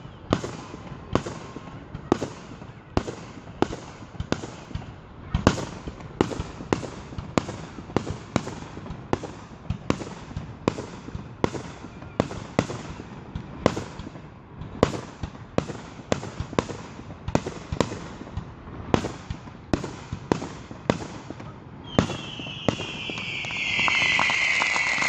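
Fireworks display finale: a steady run of sharp bangs, about one or two a second. Near the end a louder, dense wash with a falling whistle takes over.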